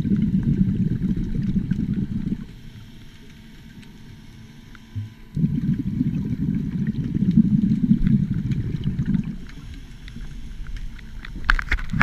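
Underwater, a scuba diver's exhaled bubbles rumble out of the regulator in bursts of a few seconds: at the start, again from about five seconds in, and once more near the end, with quieter pauses between as the diver breathes in. Near the end the bubbles come with a crackling of clicks.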